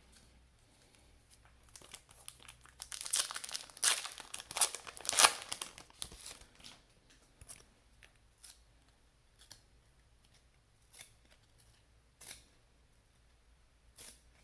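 Trading card pack being opened, the wrapper rustling and crinkling in a run of bursts about two to six seconds in, loudest near five seconds. Scattered light rustles and taps of cards being handled follow.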